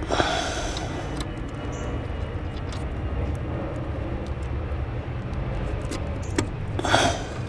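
Pin and retaining clip being fitted to a Porsche 944 clutch pedal and clutch master cylinder pushrod by hand under the dashboard. Scattered small metal clicks, with louder scraping and rustling bursts just after the start and near the end, over a steady low rumble.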